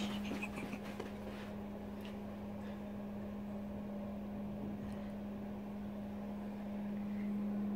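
A steady low mechanical hum, a single unchanging tone over a faint hiss, with a few light clicks in the first second.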